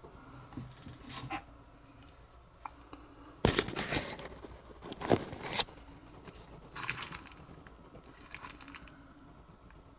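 Small parts and tools being handled at a workbench: scattered light clicks and a few short scraping, crinkling noises, the loudest about three and a half and five seconds in.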